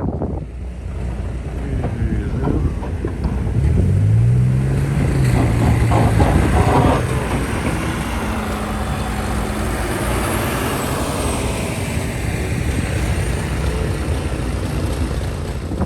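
A motor vehicle's engine revs up about four seconds in and holds its pitch for a few seconds, over a steady rush of street and traffic noise.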